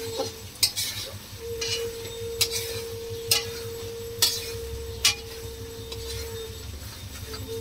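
Long metal spatula scraping and knocking against a metal kadai as spice paste is stir-fried, with about five sharp clinks roughly a second apart, over a steady hum.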